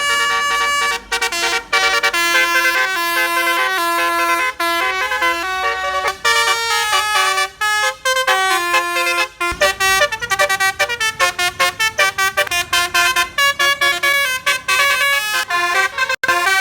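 Bus telolet 'basuri' horn, a set of tuned air horns, playing a fast tune of short stepped notes. From about halfway through the notes come quicker, over a low hum.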